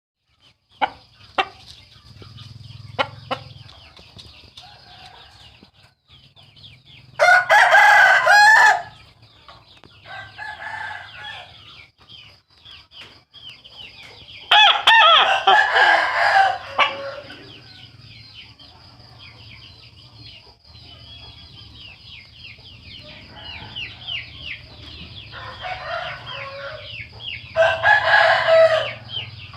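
Roosters crowing with a horn-like crow: three long, loud crows several seconds apart, with shorter, quieter crows and clucking between them, over a steady high-pitched buzz in the background.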